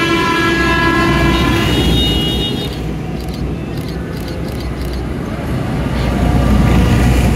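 A tractor's horn sounds one long steady blast of nearly three seconds over the deep rumble of large tractors' diesel engines. The engine sound grows louder near the end as a big tractor drives close past.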